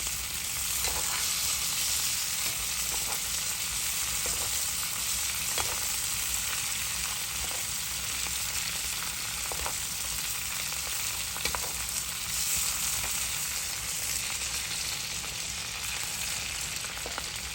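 Filet mignon steaks sizzling in hot butter in a skillet while being basted: a steady frying hiss with scattered small pops.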